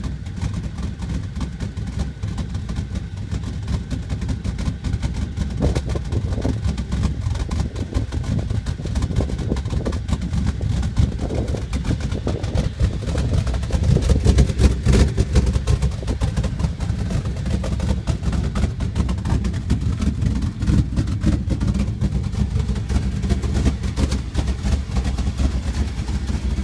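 Dodge Ram 1500's engine idling roughly, with an uneven, unsteady beat: the rough idle that is the truck's complaint. It gets a little louder about halfway through.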